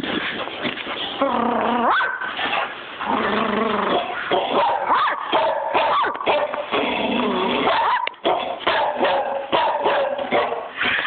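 Dog barking and growling with hardly a pause, the calls wavering up and down in pitch.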